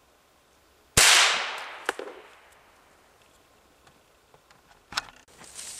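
A single gunshot about a second in, fired at a squirrel, with its report echoing away over about a second. Two sharp clicks follow, one about a second after the shot and one near the end, and rustling starts just before the end.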